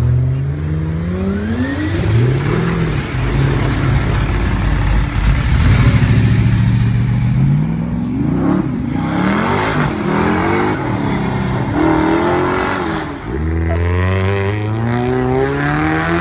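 Car engines revving and accelerating, their pitch climbing and dropping again and again, with another engine rising loudly after a short lull near the end.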